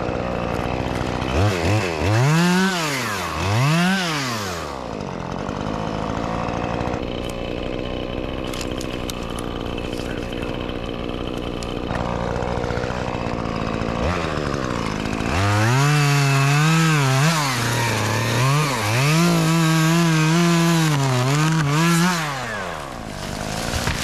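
Two-stroke Stihl chainsaw idling, blipped to full revs twice, then held at high revs for several seconds with its pitch dipping and wavering under load, as when the chain bites into a limb, before dropping back to idle near the end.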